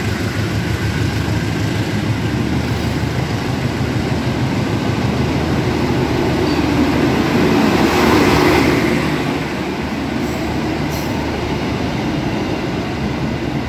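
Passenger coaches of the KA Serayu train rolling past along the platform, their wheels running steadily on the rails. The sound swells to its loudest about eight seconds in, then eases.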